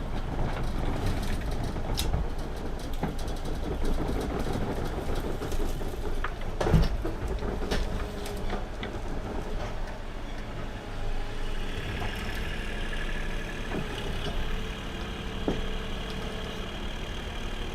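Mini excavator's diesel engine running steadily while the machine moves, with scattered metal clanks and knocks, the loudest about seven seconds in. From about twelve seconds in a steady higher whine joins the engine.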